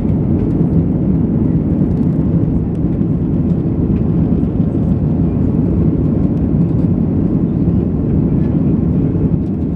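Jet airliner cabin noise during the climb after takeoff: the engines and rushing air make a loud, steady, low rumble that does not change.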